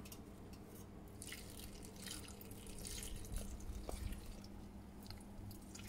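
Lime juice trickling and dripping from a plastic bottle into a stainless steel Thermomix bowl, faint and uneven.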